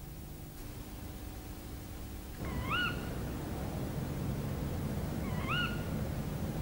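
An animal call heard twice, about three seconds apart, each a short sharp rising cry, over a background hiss that comes in about two and a half seconds in.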